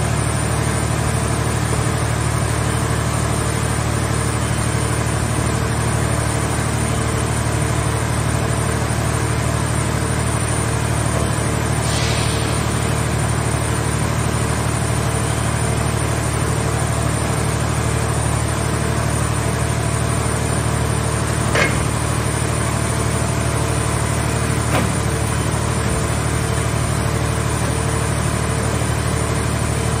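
Scrap car shell baler's hydraulic power unit running steadily while its grab arm works, with a constant low hum and a pulsing tone. A couple of brief metallic knocks come about two-thirds of the way through.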